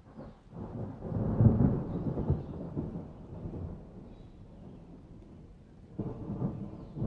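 A low rolling rumble that swells about a second in and dies away over the next few seconds, with a second, shorter rumble near the end.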